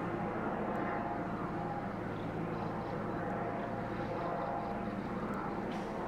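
Airplane flying over: a steady engine drone with no clear start or stop.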